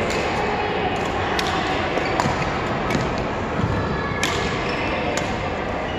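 Badminton rally: a racket strikes the shuttlecock with a sharp crack about once a second, six hits in all, with players' shoes on the court floor, over a steady background hum.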